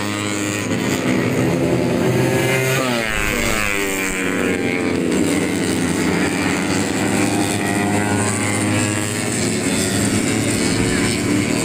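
Several tuned 150cc four-stroke underbone race motorcycles running flat out at high revs, their engine notes overlapping as they go past. The pitch sweeps down about three seconds in as bikes pass by.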